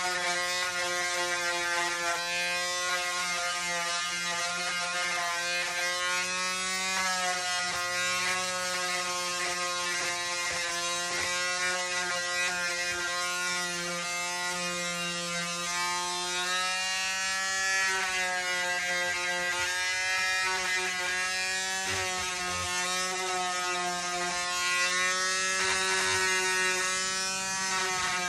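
A steady buzzing hum from a small motor, its pitch wavering slowly up and down.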